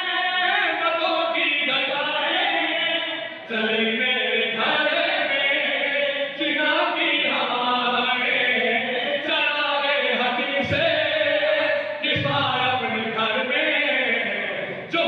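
A man chanting a devotional recitation into a microphone, amplified, with long held and sliding notes and other men's voices joining in.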